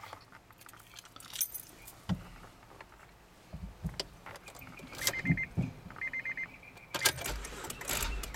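Ignition keys jangling and clicking as they are turned in a Honda Odyssey that will not crank: the weak battery only gives clicks. About halfway through, two short series of rapid electronic dashboard beeps sound, and the clicking and rattling grows denser near the end.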